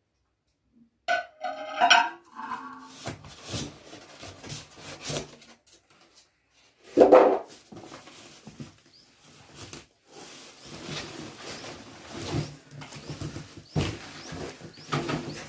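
Cardboard box and packing being handled and pulled open to unpack a microwave oven: rustling, scraping and irregular knocks. There are short squeaky pitched sounds about a second in and a loud thud about seven seconds in.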